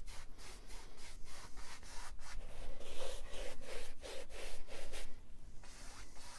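Wide flat bristle brush scrubbing wet oil paint across a stretched canvas in quick back-and-forth blending strokes, about three a second, with a short pause near the end.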